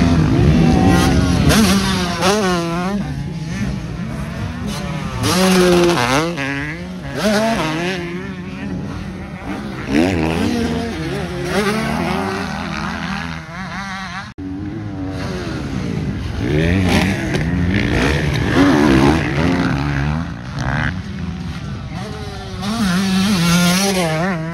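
Motocross dirt bikes riding, their engines revving up and down with the pitch rising and falling, several at once. There is a brief break in the sound about fourteen seconds in.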